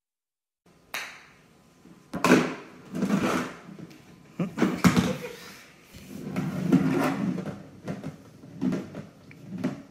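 A golf ball knocking and rolling in the plastic ball-return tray of an indoor putting mat as a cat bats at it. Irregular knocks and rattles begin about a second in.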